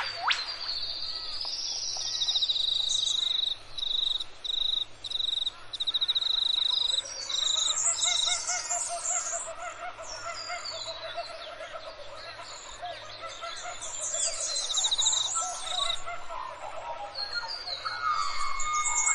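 Forest bird chorus: a string of repeated high notes in the first half, then kookaburras laughing in a long rhythmic chorus through the middle, with other small birds chirping. A single sharp falling whistle comes right at the start.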